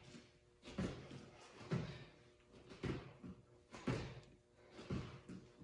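Feet landing with a thud about once a second as a person does skater jumps, hopping from side to side on the floor.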